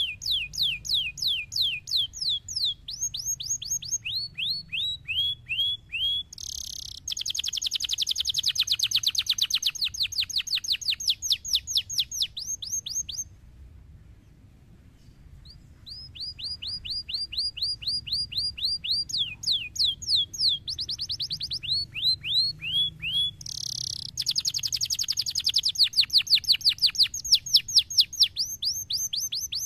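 Domestic canary singing: a long song of fast trills, each made of quickly repeated down-sweeping notes. The song changes to a very dense, loud rolling trill in its middle part. It breaks off for about two seconds about halfway through, then starts again with the same run of trills.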